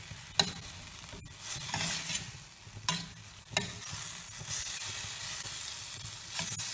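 A metal spoon stirring chopped tomatoes and onion in a steel frying pan over a steady sizzle of frying, with a few sharp taps of the spoon against the pan.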